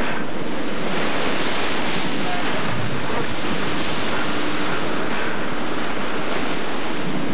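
Storm waves crashing over a fishing boat's deck in heavy spray, with gale-force wind buffeting the microphone: a loud, unbroken rush of water and wind.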